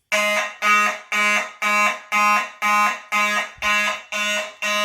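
Fire alarm horn sounding in a steady pulsed pattern, about two buzzy blasts a second: the system has gone into alarm because a smoke detector was tripped with test smoke.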